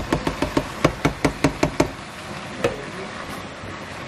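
A quick run of sharp knocks against the stainless steel cooking pot, about five a second, stopping about two seconds in, then one more knock; under them a steady hiss of the vegetable stew cooking.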